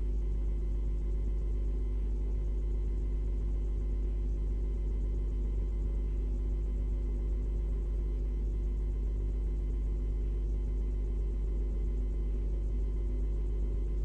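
Steady low electrical hum with faint fixed overtones, unchanging throughout, with no calls or other sounds standing out.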